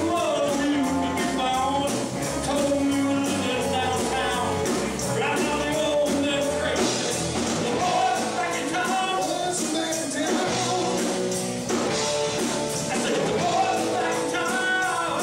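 Live rock band playing with a singer, drums and electric guitar, recorded in a bar.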